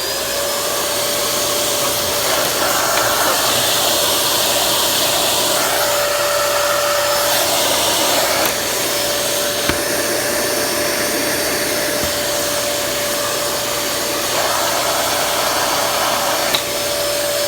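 Dyson DC23 canister vacuum cleaner running steadily, a steady whine over a rush of air drawn through its air-driven turbine floor head, the air noise shifting a few times. It has suction, but the head's brush bar does not turn: the small air-driven turbine fan is cracked and no longer drives the brush axle.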